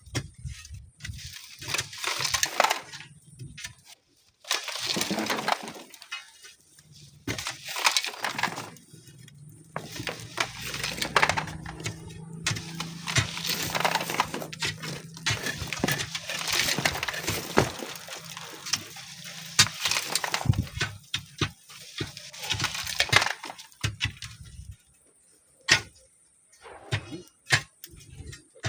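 Sand and stones being worked: irregular scraping, crunching and clinking strokes, with a steady low hum from about a third of the way in to about two thirds through.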